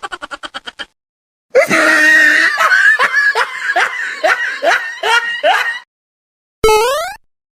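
Stock comedy sound effects: the tail of a rapid cartoon laugh, a pause, then about four seconds of a person laughing in repeated falling 'ha's, about three a second. Near the end comes a short effect sliding quickly up in pitch.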